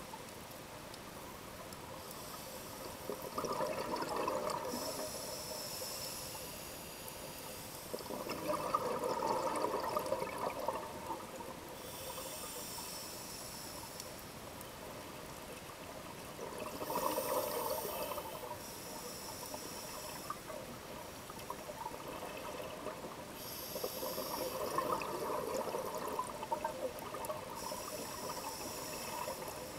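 Scuba diver breathing through a regulator underwater, heard through the camera housing: four rushes of exhaled bubbles, each a couple of seconds long and several seconds apart, with a high hiss of inhalation between them.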